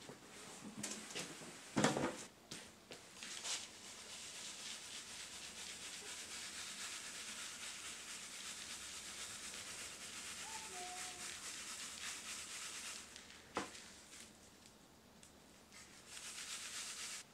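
Charcoal being sifted through a wooden-framed screen that is shaken back and forth, a steady gritty hiss of small charcoal pieces and dust rubbing over the mesh. Before it there are a few knocks and a loud thump from handling a woven sack. Near the end the sifting stops after a knock, then starts again briefly.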